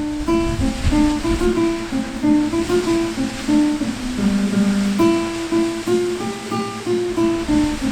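Relaxation music of plucked acoustic guitar playing a gentle run of single notes over a steady rush of falling water.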